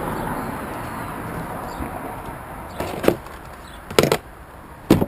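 Hands working motorcycle wiring: rustling as the loom sleeving is pulled back, then three sharp clicks or knocks about three, four and five seconds in.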